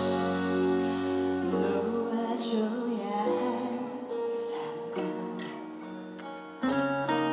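Instrumental intro of a slow, sad ballad: plucked guitar over sustained chords, before the vocals begin.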